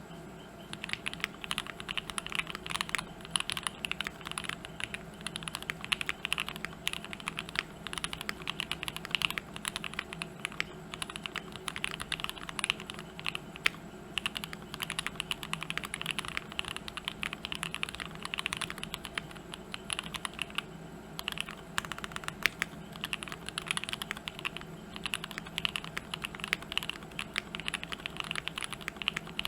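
Fast, continuous typing on a TKC Portico custom mechanical keyboard (FR4 plate, hotswap PCB with tape and silicone insert, lubed switches, GMK keycaps). The keystrokes start about a second in and go on steadily, with a few brief pauses.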